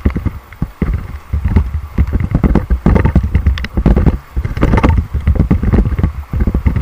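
Raft crew paddling hard: uneven paddle splashes in the river water over a low, rumbling buffeting on the camera microphone.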